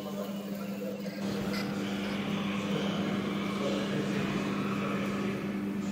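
Steady mechanical hum from a running machine: a constant low drone with an even rushing noise over it, unchanging throughout.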